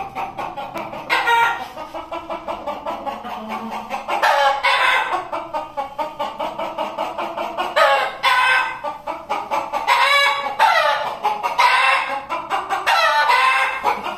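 Gamecocks crowing repeatedly, about six long crows a couple of seconds apart, over a fast, steady pulsing.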